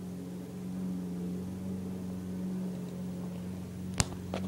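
Steady low hum with a few level tones. A single sharp click about four seconds in, then a fainter one just after.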